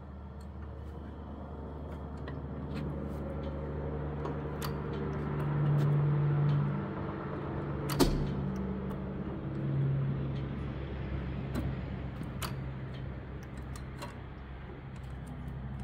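12 HP Witte single-cylinder hit-and-miss engine turning over on its flywheels after being spun by hand: a steady low hum that swells twice, light clicking from the valve gear, and one sharp crack about eight seconds in. It does not keep firing, because the governor detent is holding the exhaust valve open.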